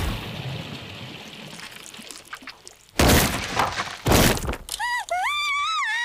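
Cartoon fight sound effects: a crash dying away at the start, then two loud crashing impacts about a second apart. High wavering music comes in near the end.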